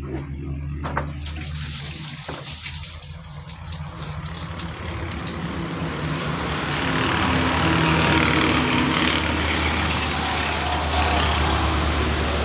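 A motor vehicle engine running, a steady low hum under a rushing noise that swells from about halfway through and stays loud. A few light metallic clicks and knocks in the first couple of seconds.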